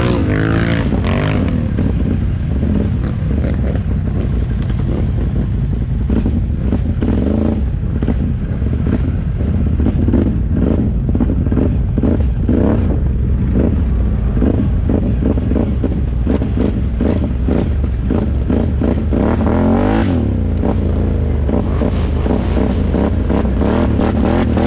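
ATV engine running under throttle while riding on a trail, its pitch rising and falling as the rider revs up and eases off, with the machine's bumping and rattling over rough ground.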